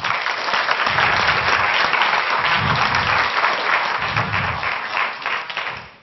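Audience applauding, dying away near the end.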